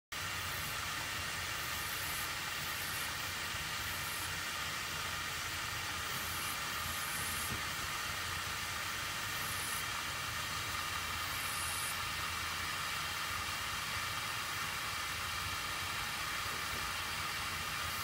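Water running into a large plastic water container, a steady rushing hiss that holds even throughout.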